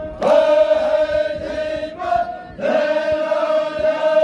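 Zikri chogan chant sung by men's voices in two long held notes, the second starting about two and a half seconds in after a brief break.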